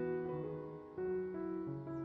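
Background music: a slow keyboard melody of held notes over changing chords, with a brief dip just before a new chord about halfway through.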